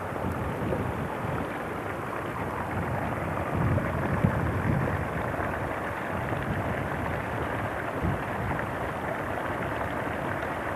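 Wind buffeting a camcorder's microphone outdoors: a steady rushing with uneven low gusty rumbles.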